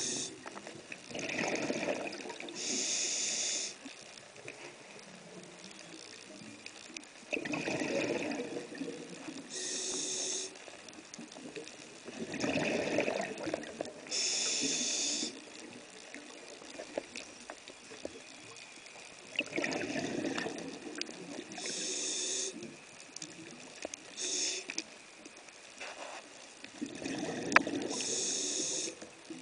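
Scuba diver breathing through a regulator underwater. Rumbling bursts of exhaled bubbles alternate with the sharper hiss of each inhaled breath, a cycle repeating about every six seconds.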